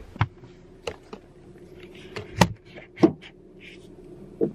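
About half a dozen sharp clicks and knocks inside a car, the loudest two about two and a half and three seconds in, over a faint steady hum.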